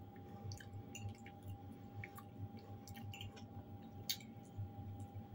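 A person chewing fried potatoes with sour cream, faint wet clicks and smacks of the mouth. About four seconds in the fork scoops from the bowl, the sharpest click. A faint steady hum runs underneath.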